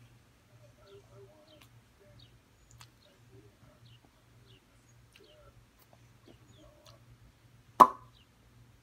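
One sharp knock about eight seconds in, over faint short high chirps, small ticks and a low hum.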